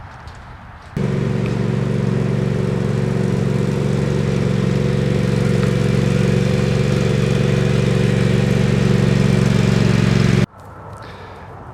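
Small gasoline engine running at a steady speed with an even pitch. It cuts in suddenly about a second in and cuts off suddenly near the end.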